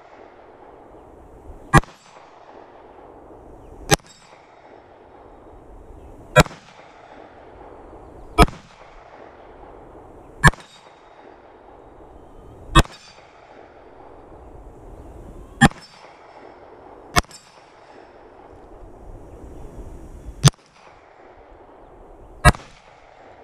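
Glock 19 Gen 4 9mm pistol fired ten times at a slow, steady pace, about one shot every two seconds. Several shots are followed by a faint metallic ring from a swinging steel target being hit.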